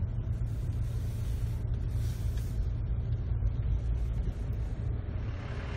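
A car driving slowly, heard from inside its cabin: a steady low rumble of engine and tyres. A brighter hiss comes in near the end.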